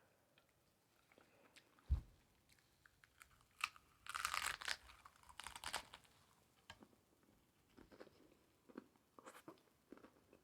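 Crunching and chewing of a hard-shell taco: two longer crunches of the shell about four and five and a half seconds in, with small chewing clicks before and after them and a low thump about two seconds in.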